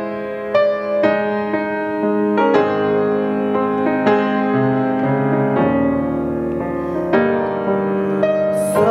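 Piano-style keyboard playing the introduction to a gospel song: a run of single notes and chords over a held low note.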